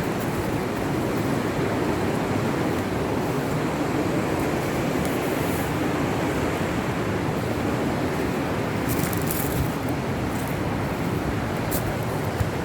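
Steady rush of river rapids: an even, unbroken roar of running water.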